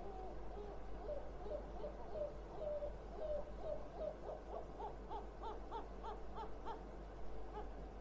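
Yellow-legged gulls giving a fast series of short, low, hooting calls, about three or four a second, the calls rising higher in pitch from about halfway through.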